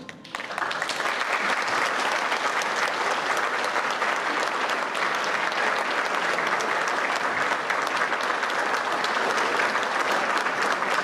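Audience applause, starting about half a second in and going on steadily.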